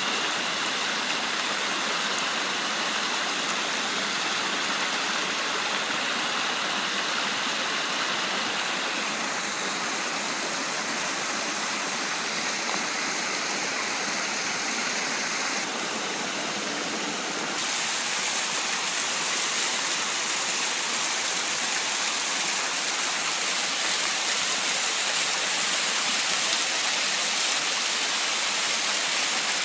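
Mountain waterfall: a steady rush of falling water, growing a little louder about two-thirds of the way through.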